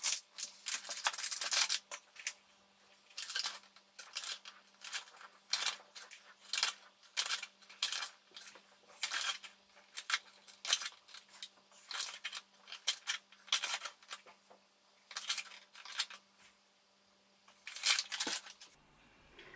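Paper bag of plain flour crinkling and rustling as it is handled, opened and tipped to pour flour into a plastic bowl on kitchen scales: many short, irregular rustles and taps, with a short pause near the end.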